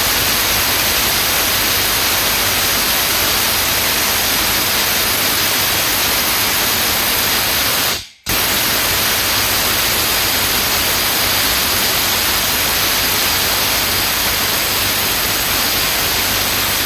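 Cordless Makita-branded impact wrench hammering continuously on a bolt tightened to 700 Nm, unable to break it loose. A loud, dense rattle that cuts out for a moment about eight seconds in and then resumes.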